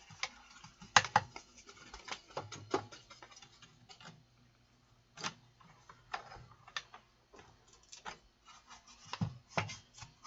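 Small brush scrubbing and knocking against the parts inside a power amplifier's chassis to loosen dust: irregular light clicks and scratches, the sharpest about a second in, over a faint steady hum.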